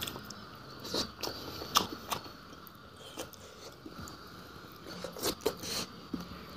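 A person chewing and biting boiled fish close to the microphone, with scattered sharp crunches and wet mouth clicks, bunched around a second in and again near five seconds in.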